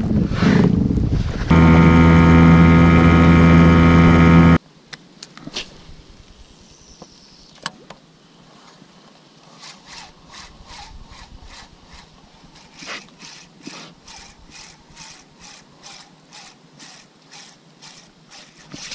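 A loud, steady low hum with many overtones lasts about three seconds and cuts off suddenly. A few sharp clicks follow, then a long run of soft, even ticks about three a second as the spinning reel is cranked to retrieve the lure.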